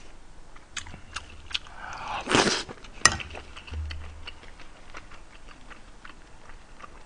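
Close-miked chewing and small wet mouth clicks of a person eating a spoonful of kimchi stew, with a short louder noisy mouth sound a little over two seconds in and a sharp click about a second later.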